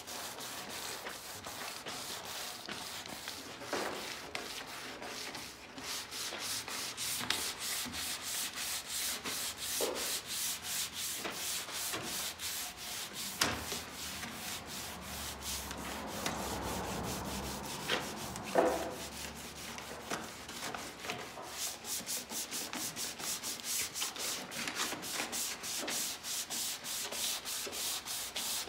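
150-grit sandpaper on a hand pad rubbed in quick back-and-forth strokes over a Chevy truck's painted front fender, scuffing the old clear coat so new paint will stick. A few sharper knocks stand out among the strokes, the loudest a little past halfway.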